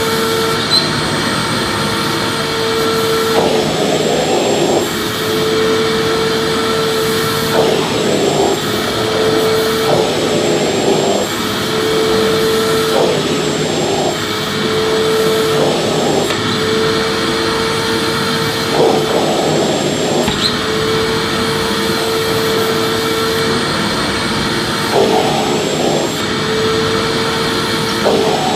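Vacuum cleaner running: a steady motor whine over a rush of air, which every few seconds gives way briefly to a rougher, wider rush before the whine returns.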